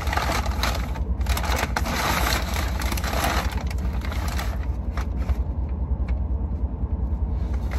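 A takeout bag rustling and crinkling as hands dig through it, busiest in the first five seconds and easing off after that. Under it runs a steady low rumble from the car.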